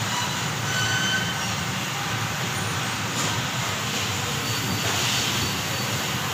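Cosmetic tube ultrasonic sealing machine running: a steady mechanical hum and hiss, with a few faint brief high tones about a second in.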